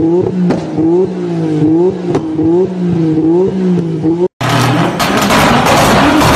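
Turbocharged Nissan Skyline idling on anti-lag: the engine note sags and recovers about twice a second, each time with a sharp exhaust crack as the anti-lag fires into the exhaust. Near the end it cuts abruptly to a drift car's engine running flat out on a chassis dyno, a dense, steady roar.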